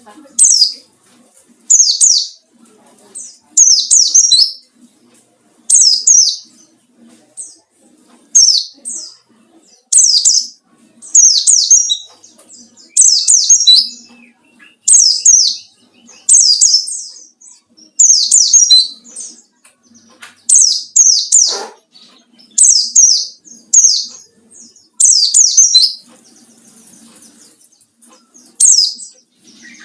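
White-eye (pleci) singing in short, fast-chirping phrases, each under a second and high-pitched, repeated every one to two seconds. It is the wild-type 'ngalas' song of a bird seeking a rival, used to provoke other white-eyes into singing.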